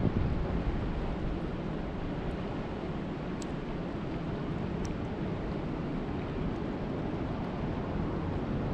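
Steady low rushing of lake water, rumbly and without any pitch, with a couple of faint ticks about three and a half and five seconds in.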